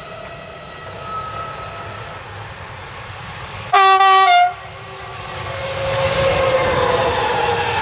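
A locomotive's horn gives one short, loud blast about four seconds in, dropping in pitch just as it ends. Then a train approaches, its rumble growing louder with a falling whine.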